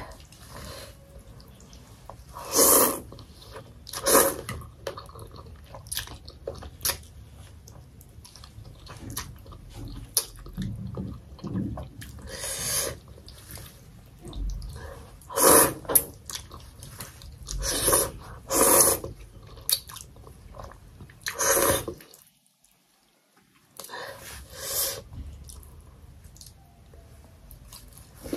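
Close-up eating sounds of a bowl of thukpa noodle soup: chewing, broken by about ten short, loud slurps as noodles are sucked in. It briefly goes almost silent about three quarters of the way through.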